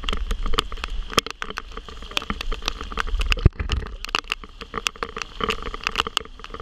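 Raindrops tapping irregularly on a handheld GoPro camera in heavy rain: quick scattered clicks over a low rumble of wind and handling on the microphone.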